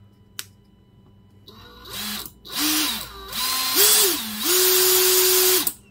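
Brushless motor of a DeWalt DCF901 12V impact wrench, out of its housing and without its gearbox, running free on battery power through its variable-speed trigger switch. It spins up in several short spurts, the whine rising and falling with the trigger. It then holds a steady speed for about a second before cutting off.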